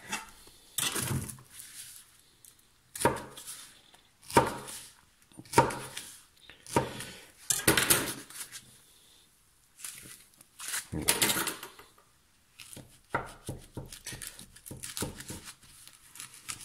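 Kitchen knife cutting through a blue foam pool noodle, with the cut foam pieces being handled: a string of short scraping strokes separated by pauses.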